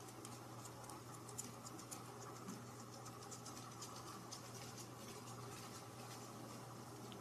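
Faint, irregular scratching and tapping of a kitten's paws and claws batting at a wand toy's pompom and string over a fabric couch, over a steady low hum.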